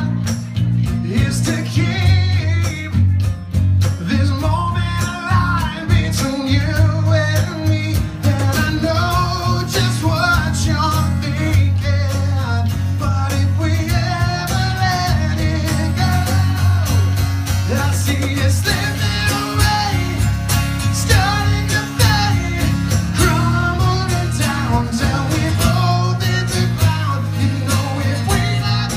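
Live acoustic band: a man sings lead over two strummed acoustic guitars and an electric bass, which holds steady low notes under the melody.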